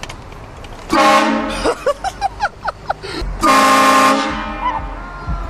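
Vehicle-mounted train horn blasted twice: a short blast about a second in, then a longer one about three and a half seconds in that trails off.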